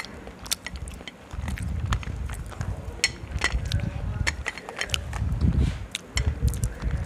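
Slate pencils bitten and chewed right at a clip-on microphone: irregular sharp crunches and snaps over a low chewing rumble. The pencils have been washed in water, which she says makes their crunch a bit quieter.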